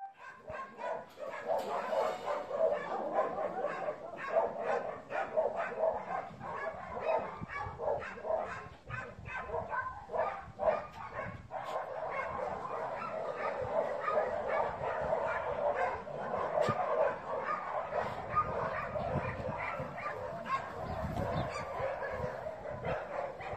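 Dog barking, one bark after another without a break.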